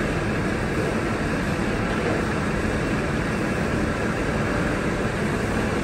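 Steady rumble and hiss of the AD60-class Beyer-Garratt steam locomotive 6029 rolling slowly into the platform, with no chuffing beat.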